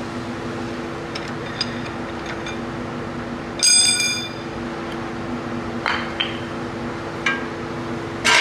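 Metal tools and engine parts clinking and knocking during hand work on a jet ski engine's drive coupler, with one bright ringing metallic clink about three and a half seconds in and sharper knocks near the end, over a steady low hum.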